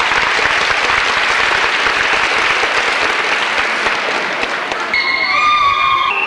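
Audience applauding steadily, with a brief high, held tone sounding over it for about the last second.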